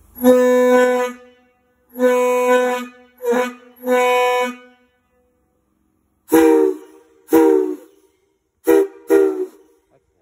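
Steam locomotive whistles blown on compressed air rather than steam, in short blasts. First one whistle sounds four blasts on a single steady note. After a pause of about a second and a half, a second whistle sounds four shorter blasts, a chord of several close notes that dips in pitch as each blast opens.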